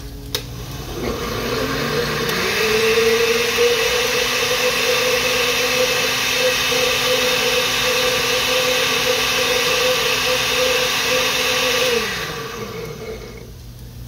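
Countertop blender clicked on, its motor spinning up and running steadily for about ten seconds as it purées a tomato and chile salsa, then switched off and winding down with a falling whine near the end.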